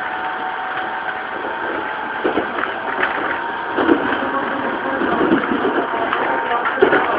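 Running sound inside a Tokyu 2000 series electric train car: a steady whine from the Hitachi GTO-thyristor VVVF traction drive and motors over the rumble of the wheels. A few clacks from the wheels on the track come about two, three and four seconds in and again near the end.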